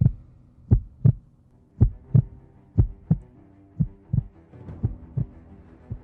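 Heartbeat sound effect: low double thuds about once a second over a faint low drone, fading slightly toward the end.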